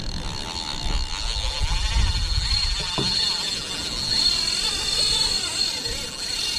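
Wind gusting on the microphone, with a steady high whine over it.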